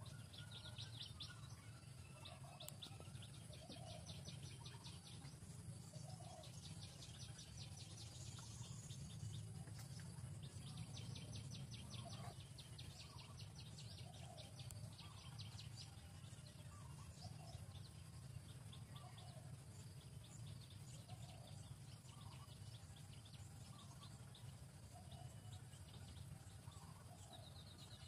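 Faint outdoor wildlife ambience: bursts of rapid high trilling and short lower calls repeating every second or two, over a steady low rumble.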